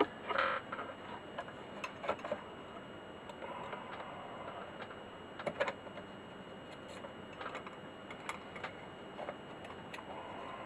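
Faint, irregular ticks and light clicks from small tools and parts being handled during desoldering work on the instrument's battery wiring, with a slightly louder click about five and a half seconds in. A faint steady high tone sits underneath.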